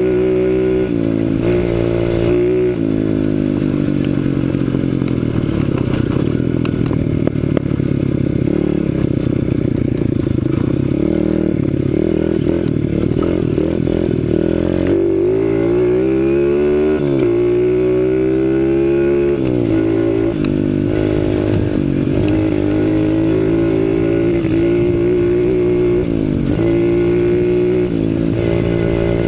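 A CRZ 125 Pro pit bike's single-cylinder four-stroke engine being ridden, its revs climbing and dropping back again and again as the throttle is opened and closed.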